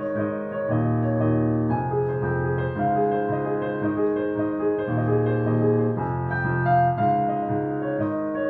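Piano played with both hands: a slow piece of held chords under a melody, the chords changing about once a second.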